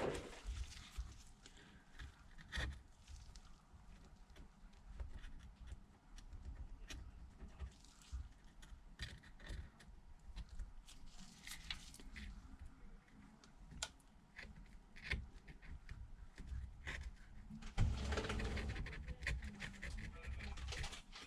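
Light scraping, brushing and small clicks of hand tools working over a Samsung Galaxy Note 9's frame as old dirt and adhesive are cleaned off, with a louder stretch of scraping near the end.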